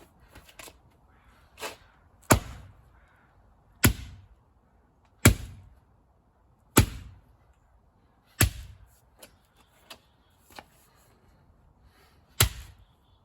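A carbon monoxide alarm being smashed with a hook swung two-handed: six heavy blows about every one and a half seconds, the last after a longer pause, with lighter knocks between. No beeping is heard.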